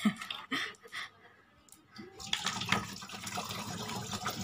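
Water poured from a plastic bottle into the side inlet of an air cooler's water tank, a steady splashing stream that starts about halfway through. A few short knocks and handling sounds come before it.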